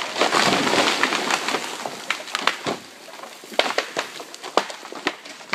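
Felled tree crashing down through the forest, the noise of breaking limbs and brush dying away over about three seconds. After that come scattered cracks and ticks of broken branches and debris falling.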